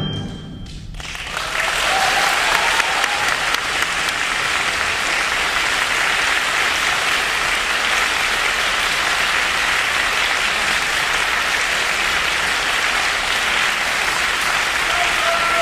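The band's last chord fades out, and about a second in an audience breaks into steady applause that carries on without letup.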